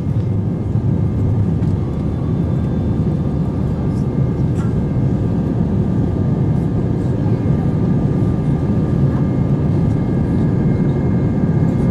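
Steady in-flight cabin noise of an Airbus A320 heard from a window seat: a deep, even rumble of engine and airflow noise with a few faint steady high whines from the engines.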